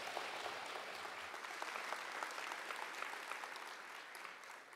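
Audience applauding: many hands clapping together, tapering off and dying away near the end.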